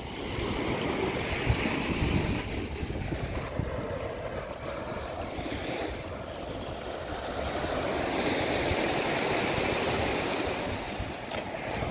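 Sea surf washing onto a sandy beach, a steady rushing noise that swells and eases, with wind buffeting the microphone.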